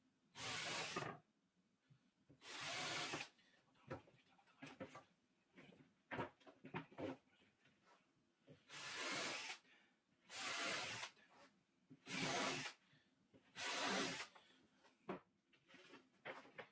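Pine boards sliding and scraping across a laminate cabinet top, six separate scrapes of about half a second to a second each, with light wooden knocks and clicks between them as the boards are set down and lined up.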